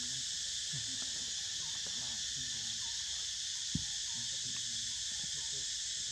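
Steady high-pitched insect chorus droning in forest, with one brief click a little past halfway.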